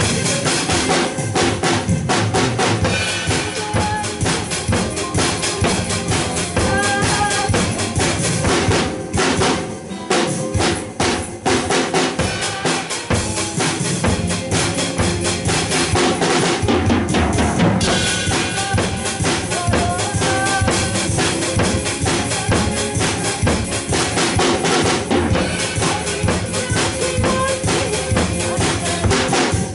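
Drum kit played in a steady beat, with bass drum, snare and cymbals, along with a recorded backing track of a song whose melody runs underneath.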